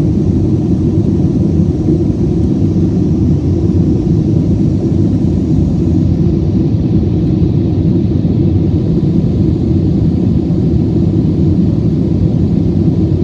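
Airplane cabin noise in flight: a loud, steady low rumble that holds unchanged.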